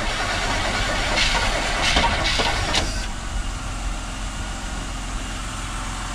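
A 1977 Chevrolet C10's carbureted small-block V8 turning over and sputtering as it tries to catch, without settling into a steady run. It is busier in the first half and quieter after about three seconds. The crew puts the hard start down to ignition timing that is off, and possibly some flooding.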